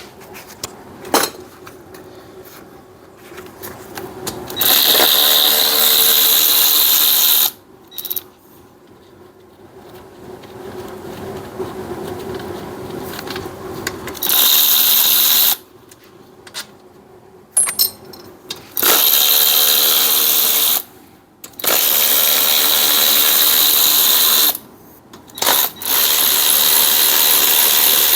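A power tool run in about five bursts of one to three seconds each, a steady whine with a loud hiss over it, with quieter clicks and handling noise in between.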